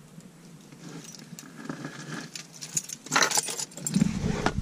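Keys jangling and clicking as a set that includes a Caterpillar dozer key is picked up and handled, with a louder rattle about three seconds in.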